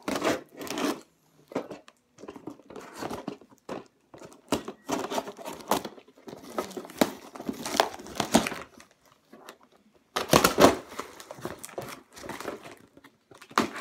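Cardboard box being cut and torn open by hand, with crinkling of its packing: irregular bursts of scraping, tearing and crinkling, loudest about ten seconds in.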